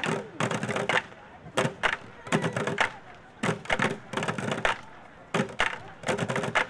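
Bucket band drumming with wooden sticks on upturned plastic five-gallon buckets, playing a marching rhythm: quick clusters of sharp, hollow hits about once a second with short gaps between.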